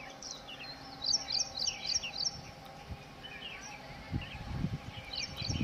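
Small birds chirping in quick, repeated short notes, in two runs, over a faint steady hum. A low rumble comes in about four seconds in and grows louder toward the end.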